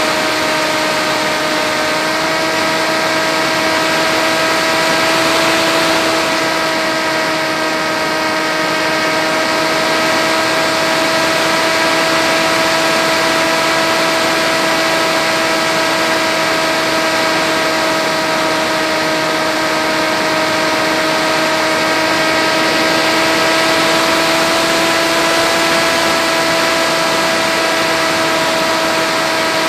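FX-61 flying wing's electric motor and propeller running at a steady cruise throttle, heard from the camera on the airframe: a steady buzzing hum that drifts only slightly in pitch, over a constant rush of air.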